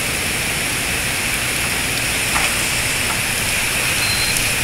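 Heavy tropical-storm rain pouring steadily, an even rushing hiss.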